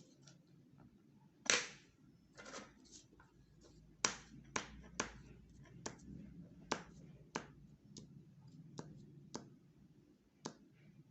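A run of sharp clicks or taps, one loud one about a second and a half in, then roughly one every half second to a second, over a faint low room hum.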